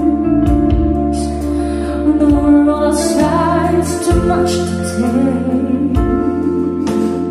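A song with singing over sustained instruments and a steady bass, played through a pair of KEF Reference floorstanding loudspeakers and heard in the room, with a soft low thump recurring every one to two seconds.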